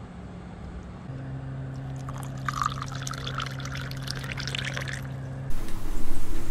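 Water poured in a thin stream into a glass of tomato pulp and seeds, splashing and rising in pitch as the glass fills, over a low steady hum. About five seconds in, a louder steady noise suddenly takes over.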